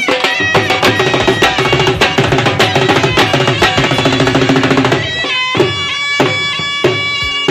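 Loud Punjabi folk dance music: a reedy wind instrument holds a steady melody over fast, dense drumming. After about five seconds the drumming thins to sparser strokes.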